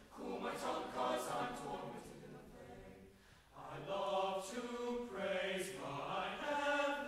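A men's high school choir singing a spiritual in harmony. A phrase fades briefly about three seconds in, then the choir comes back in louder.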